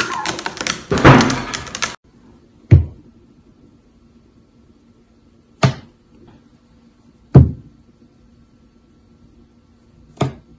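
Busy, loud mixed noise that cuts off abruptly about two seconds in, then four single sharp knocks a few seconds apart.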